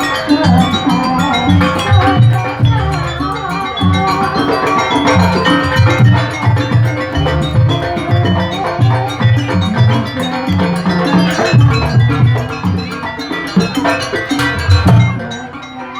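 Jaranan accompaniment music: an East Javanese ensemble of hand drums and ringing metal gongs playing a steady, driving rhythm with a melody over it. It drops away briefly near the end before starting up again.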